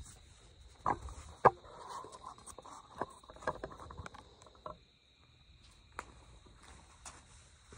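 Steady high trill of night insects, with a few scattered knocks, the loudest about a second and a half in.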